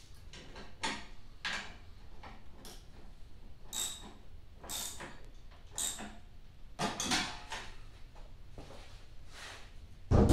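A string of short, irregular scraping and rasping handling sounds as parts are worked by hand on a snowblower's handle and chute, with a louder knock near the end.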